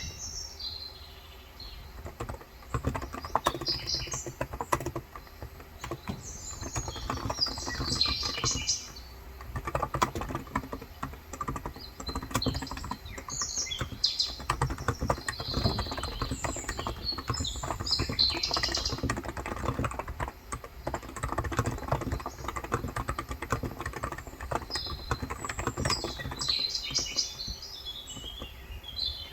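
Rapid typing on a Cox Endeavour tenkeyless keyboard with 35 g non-contact capacitive switches, keystrokes running in quick runs with brief pauses. Small birds chirp in bursts over the typing.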